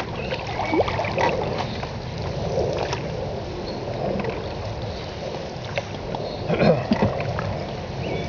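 Open canoe under way: paddle strokes dipping and splashing, with water gurgling along the hull and a steady low wind rumble on the microphone. The loudest splashes come about six and a half seconds in.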